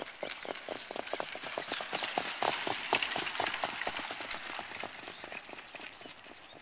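Hoofbeats of two harness horses pulling training carts on a sand track: a quick, overlapping run of clip-clops that grows louder as they pass close about two to three seconds in, then fades as they move away. A rushing hiss runs under the hooves.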